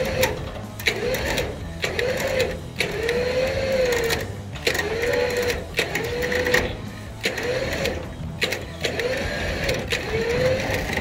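Trailer winch pulling the 1946 Hudson pickup up the rollback bed in short repeated pulls: a motor whine that rises and falls with each pull, roughly a second long, with brief stops between.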